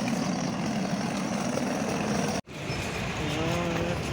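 Steady background din of a busy outdoor market with an engine-like hum. The sound cuts out for an instant about two and a half seconds in, and short gliding voices or calls come in near the end.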